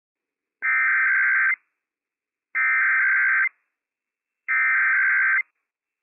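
Emergency Alert System SAME header on NOAA Weather Radio: three short bursts of buzzy digital data tones, each about a second long with a second of silence between them, encoding a Required Weekly Test.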